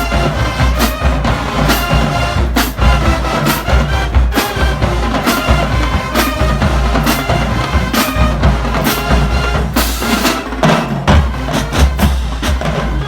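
High school marching band playing: horns holding chords over a drumline with heavy bass drum, punctuated by sharp accented hits a little more than once a second.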